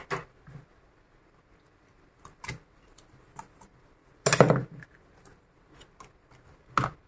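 A laptop LCD panel being handled and lifted out of its plastic display lid: scattered light clicks and knocks, with a short clatter about four and a half seconds in and another knock near the end.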